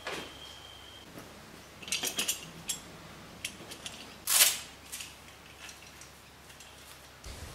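Metal clicks and clinks as pruning secateurs are lifted off pegboard hooks, then a single louder, brief rasp of the secateurs being handled. A thin steady high tone sounds during the first second.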